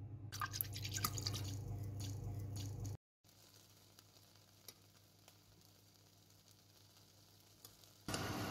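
Wire whisk stirring liquid in a metal pot, its wires clicking and tapping irregularly against the pot for about three seconds. After a cut come a few faint taps, and near the end a loud steady rushing noise starts.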